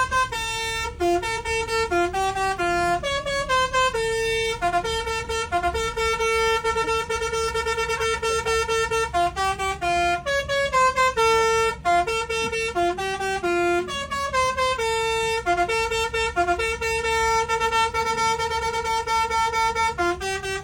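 Bus's 'telolet basuri' musical horn playing a melody, stepping between short and long held notes with brief breaks between phrases.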